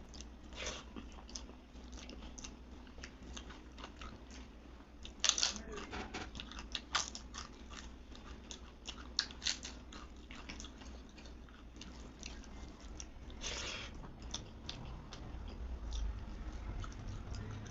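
Close-miked chewing and biting of food: steady wet mouth clicks with a few louder crunches scattered through.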